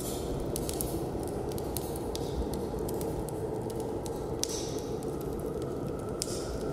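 Ambient noise: a steady low rushing sound scattered with brief crackles and clicks.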